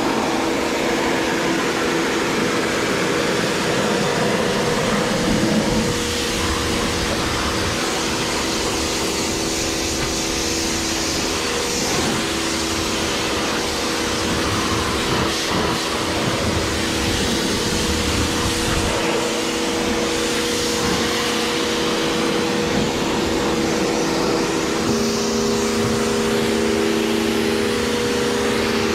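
A motor-driven machine running steadily: a constant hum with a broad hiss over it, and a lower hum joining near the end.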